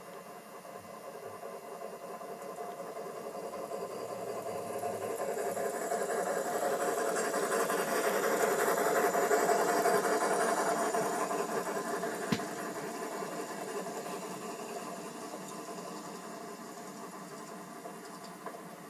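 USA Trains large-scale model Hudson locomotive and heavyweight passenger cars rolling past on the track, a steady rumble and rattle of wheels and running gear that grows louder, peaks about halfway through, then fades away. One sharp click comes a little after the loudest point.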